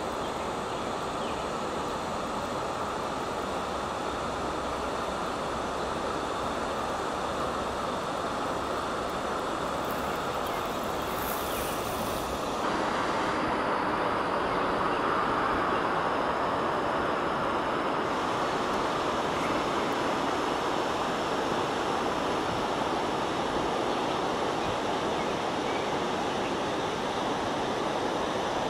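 Steady rushing of a small waterfall, the Vloman Kill falls, heard across open water; it steps up a little louder about twelve seconds in.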